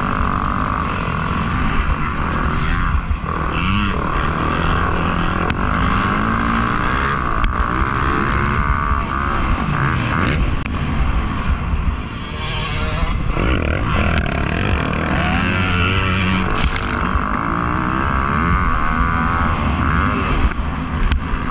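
Motocross bikes racing, engines running hard and rising and falling in pitch as they rev.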